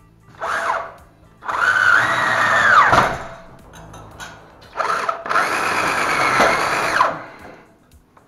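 Cordless drill-driver driving screws to fix metal drywall profiles to wooden ceiling battens. It runs twice, each time a short blip and then a longer run of about a second and a half to two seconds, with the whine dropping in pitch at the end of each run.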